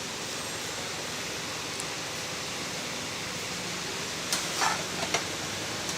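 Steady, even hiss with no clear pitch, broken by a few short sharp clatters about four to five seconds in.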